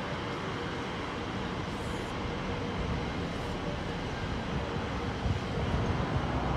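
Class 345 Crossrail electric multiple unit running past on the track: a steady rumble and hiss of wheels on rail.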